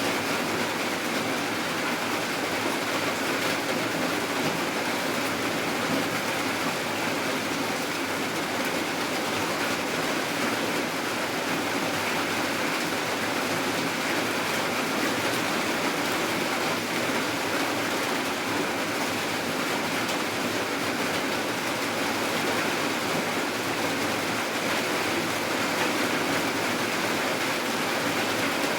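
Steady rain falling, an even hiss that never changes, with no separate drips or thunder.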